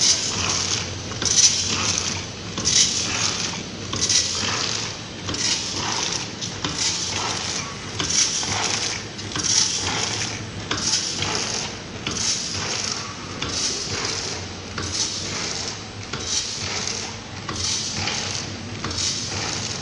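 Vertical form-fill-seal packing machine running and bagging nuts: a clatter of nuts dropping through the filling tube, repeating in a steady cycle about every one and a half seconds as each bag is filled and released.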